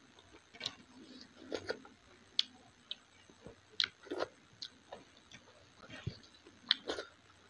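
Eating by hand from a steel plate: irregular sharp clicks and wet squelches as fingers mix dal-soaked food against the plate, with mouth smacks while chewing.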